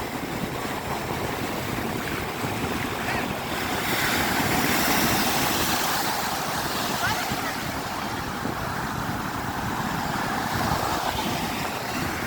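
Ocean surf washing on a beach, with a wave swelling and breaking about four to six seconds in, and wind buffeting the microphone.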